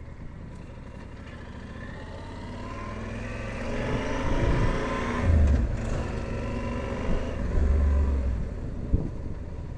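Motor vehicle and road noise while riding a motorcycle, swelling to its loudest about halfway through, with low rumbling gusts of wind on the microphone.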